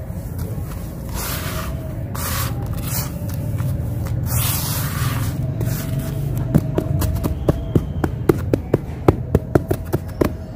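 Dry, grainy sand-cement crumbles being scooped by hand and let fall back into the tub, making several rushing, pouring rustles. From about six and a half seconds in, fingers rake and scratch through the grains with a quick run of sharp crunchy ticks, about three a second.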